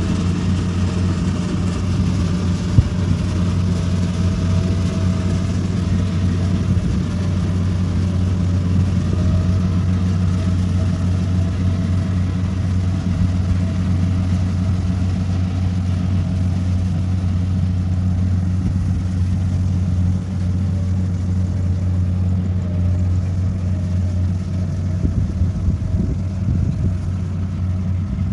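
Rice combine harvester's engine running steadily under load while cutting the crop, a constant low hum. One sharp click about three seconds in.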